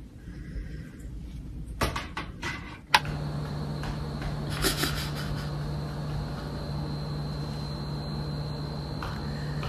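Several quick sharp clicks, then a steady low electrical hum with a faint high whine that starts with a click about three seconds in, like a household appliance running.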